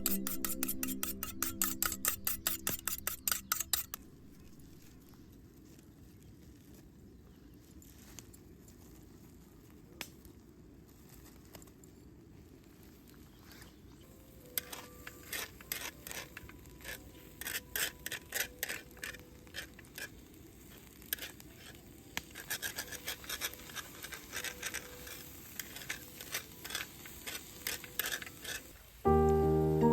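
Quick, even scraping strokes for about four seconds, then a quiet stretch, then irregular scraping and clicking. Music comes in near the end.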